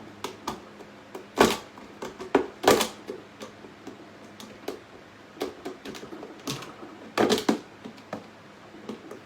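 Irregular clicks, taps and knocks of hand work on a plastic box enclosure as its edges are trimmed and smoothed, with a few louder knocks about one and a half seconds, nearly three seconds and seven seconds in.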